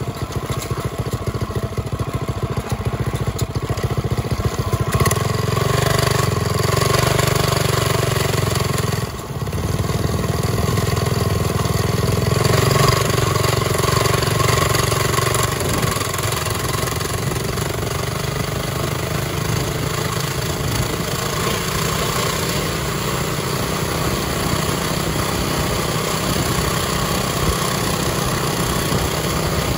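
Mini bike's small single-cylinder engine pulling the bike up to speed, then running steadily under throttle. The engine sound drops out briefly about nine seconds in and comes straight back.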